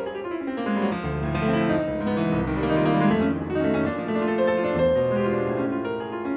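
Background piano music: a slow, sustained piece with held chords.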